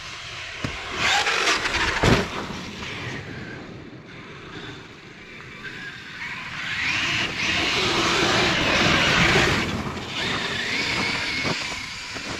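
Traxxas X-Maxx 8S electric RC monster truck running on snow: its brushless motor whines up in pitch as it accelerates, twice, over the rush of its tyres in the snow. There is a sharp knock about two seconds in.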